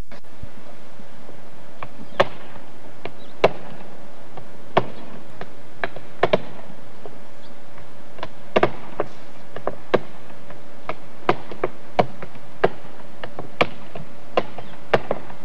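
Roofers' hammers driving nails into roof shingles: sharp single knocks at an uneven pace, roughly one a second, over a faint steady hum.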